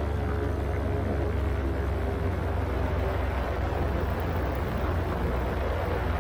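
Steady low drone of a paramotor's engine and propeller in flight, with wind rushing over the microphone.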